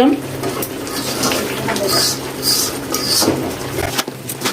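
Spatula scraping and stirring chicken being fried dry in its spice paste in a pan, with several short scrapes against the pan about two to three seconds in.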